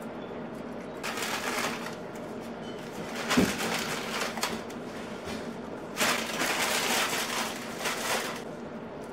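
Kitchen handling sounds as bundles of glass noodles go into a simmering pan of mung bean soup: three bursts of rustling crackle, about a second in, around three seconds in with a sharp knock, and from about six to eight seconds, over a steady low hum.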